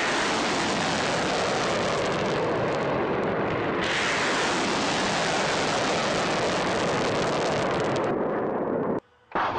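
Missile's rocket motor firing at launch: a loud, steady rush of noise that cuts off abruptly near the end.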